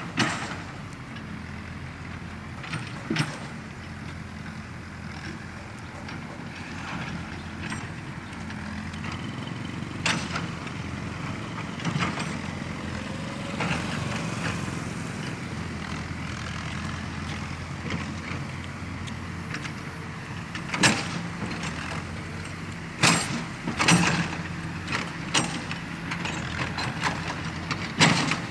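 Excavator's diesel engine running steadily, with sharp knocks now and then, several close together near the end.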